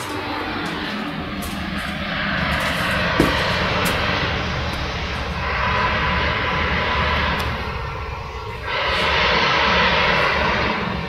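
Traffic on the Western High-Speed Diameter motorway: a continuous rush of tyres and engines that swells and eases as vehicles pass. The noise dips briefly about two-thirds through, then rises to its loudest near the end.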